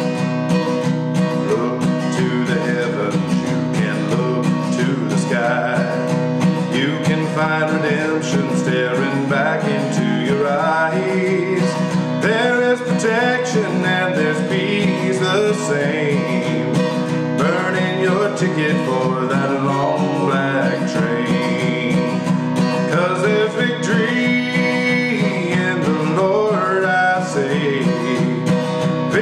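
A man singing a slow country song to his own acoustic guitar, the guitar playing steadily throughout and the voice coming in after about two seconds.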